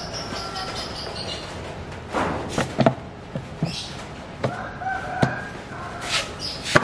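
A hard plastic fuel tank knocking against a motorcycle's metal frame as it is being fitted, with several sharp knocks about two to three seconds in and the loudest one near the end. A rooster crows in the background, a long held call about two thirds of the way through.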